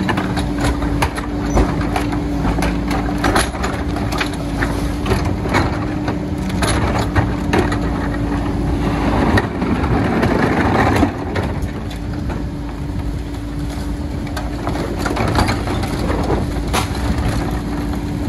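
Rear-loader garbage truck running with a steady hum while trash is loaded into its hopper: repeated bangs and knocks from carts and bags, with a louder rush of noise about ten seconds in.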